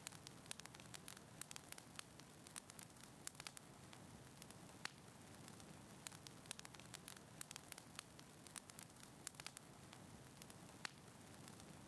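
Faint wood fire crackling in a fireplace: a soft steady hiss with small, irregular pops and snaps, several a second.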